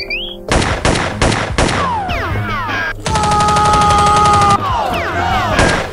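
Gunfire sound effects: four single shots, then a rapid automatic burst lasting about a second and a half, and one more shot near the end. Falling whistling tones sound in the gaps.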